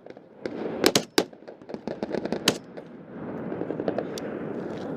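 Small-arms gunfire in a firefight: several sharp, irregular shots, the loudest about a second in and at two and a half seconds, with a steady noise and scattered fainter cracks from about three seconds on.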